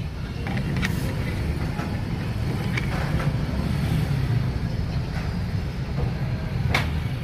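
Steady low rumble of a vehicle engine running close by, with a few light metallic clicks of starter-motor parts handled on a workbench: the drive pinion being fitted onto the armature shaft.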